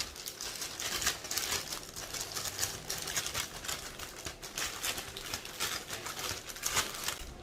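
Courier parcel's wrapping being handled and torn open by hand: continuous crinkling and rustling with many small irregular crackles.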